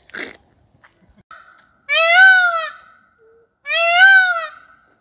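Indian peafowl (peacock) giving two loud, wailing calls about two seconds apart, each rising and then falling in pitch.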